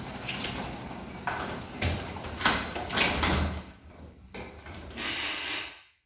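Sectional garage door with newly replaced cable pulleys running down on its opener, rumbling and rattling along the tracks, with several loud clunks and knocks about two to three seconds in. It cuts off suddenly near the end.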